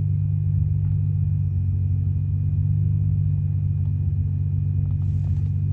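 Car subwoofer on an NVX XAD15 amplifier playing a 40 Hz test tone: a steady low hum. Its input voltage is still above about 2.5 V, the level at which the owner finds this amp's output waveform starts to distort.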